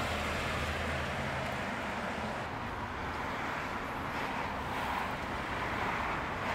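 Steady street ambience: the even rush of road traffic from cars on the street.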